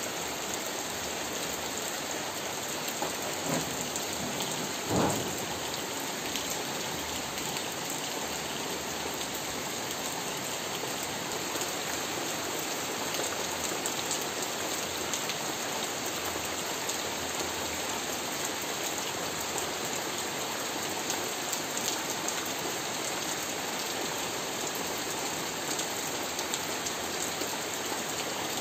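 Steady rain falling on roof tiles and leaves, an even hiss throughout. A short low thump stands out about five seconds in.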